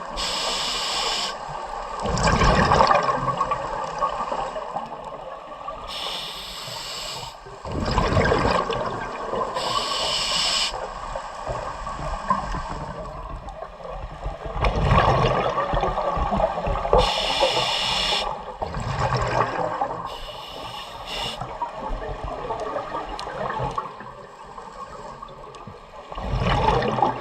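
Scuba diver breathing underwater through a regulator: a hissing inhale every few seconds, followed by a gurgling rush of exhaled bubbles.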